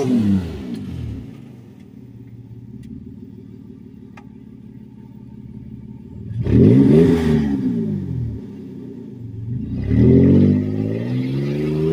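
Lifted SUV's engine winding down to an idle, then revving hard once about six seconds in and again near the end, the second rev held longer.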